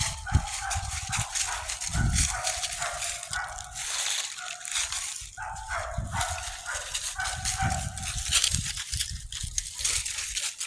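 Puppies of almost ten weeks barking and yipping in a string of short, high-pitched calls, which thin out over the last couple of seconds.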